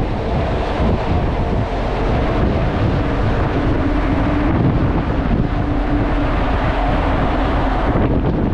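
Wind buffeting the microphone on the open deck of a ship under way, over a low steady rumble with a faint steady hum.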